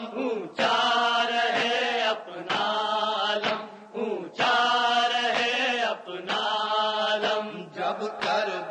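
A male voice chanting a noha, an Urdu Shia lament, in long held phrases with short breaks between them.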